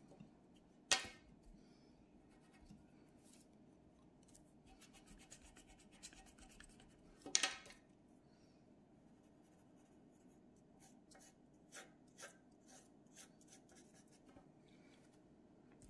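Pencil scratching and shading on paper in short faint strokes, with a denser run of scribbling past the middle. Two louder sharp sounds stand out, about a second in and again at about seven seconds.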